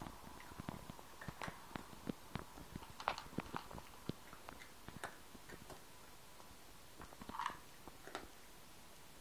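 Cat eating dry kibble from a plastic bowl: irregular small crunches and clicks as it chews and picks up pieces.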